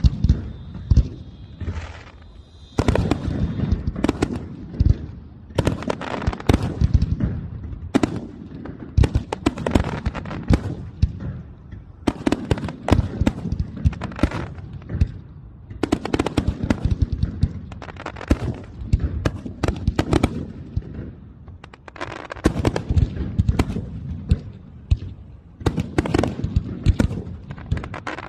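Aerial fireworks display: a rapid, irregular barrage of launches, booming bursts and crackling reports, with a brief lull a couple of seconds in before the volleys thicken.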